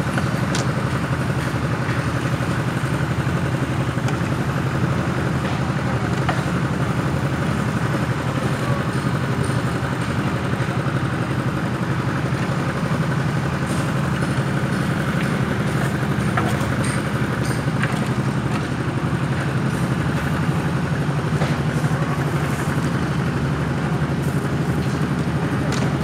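Engines of a hydraulic static pile driver rig and its mounted crane running steadily with an even low drone, with a few faint clicks and clanks now and then.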